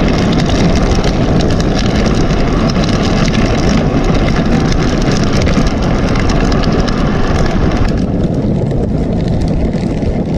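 Wind buffeting an action camera's microphone while a bicycle rolls along an asphalt path: a loud, steady rumble and hiss with small crackles. The hiss turns duller about eight seconds in.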